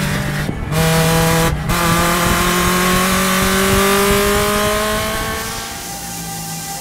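Mazda MX-5 Cup race car's four-cylinder engine heard from inside the cockpit, pulling hard under throttle in one gear, its note rising steadily as the car accelerates. The engine sound drops out briefly twice in the first two seconds, and fades away shortly before the end.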